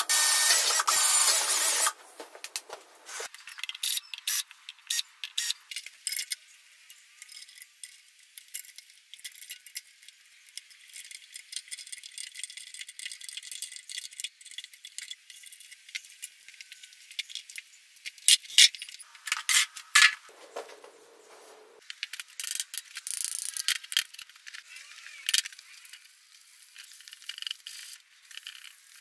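A cordless drill runs for about two seconds and stops abruptly. Then come scattered light metallic clicks and rattles as the shock absorber strut parts, spring and hand tools are handled.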